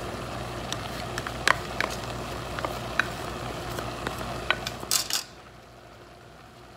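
Browned ground beef, sausage and onions sizzling in a pan while a spoon stirs them, with scattered clicks and scrapes of the utensil against the pan. A louder scrape comes about five seconds in, and then the sizzling drops away to a faint background.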